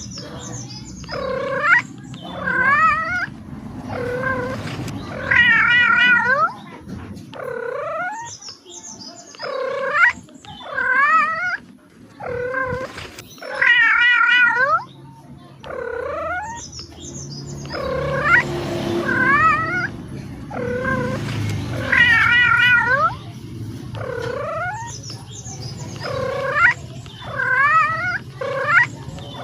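Domestic cat meowing over and over, a call every second or two; several calls are drawn out with a wavering pitch. A low, steady rumble runs underneath.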